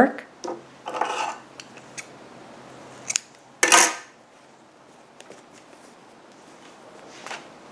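A handful of short rustles and scrapes from hands working the yarn of a crocheted piece as the yarn end is pulled through to fasten off, the loudest about four seconds in.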